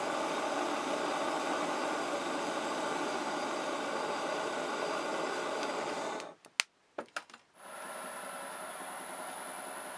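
Workshop machine tool running with a steady mechanical noise that cuts off abruptly about six seconds in. A few sharp clicks follow, then a quieter steady running sound with a high thin whine.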